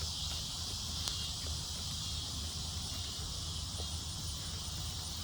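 Steady, high-pitched chorus of insects singing in the garden, with a low steady rumble underneath.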